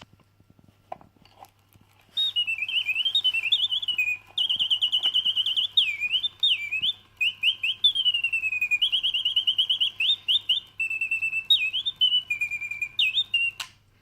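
Flajoulot singing bird cage automaton of about 1890, its bellows-blown piston whistle playing a bird song of rising and falling glides and rapid trills. A few faint mechanism clicks come first, the song starts about two seconds in and stops abruptly near the end.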